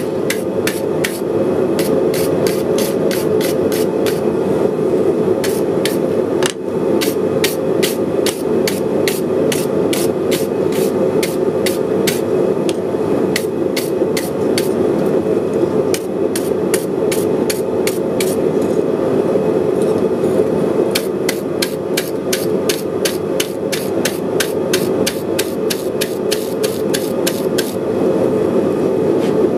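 Hand hammer striking red-hot steel on an anvil in quick, even blows, about three a second, slowing for a few seconds past the middle, over a steady roar.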